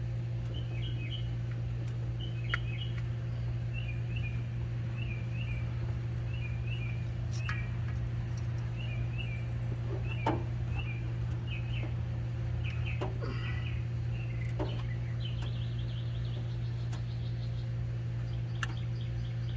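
Small birds chirping in short repeated calls over a steady low hum, with a few light clicks scattered through.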